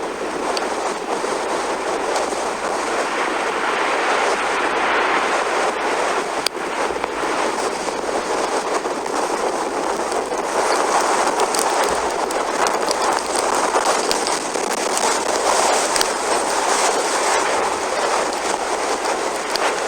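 Continuous rushing roar of a large tornado with strong wind, swelling slightly about halfway through, with many faint ticks and crackles mixed in.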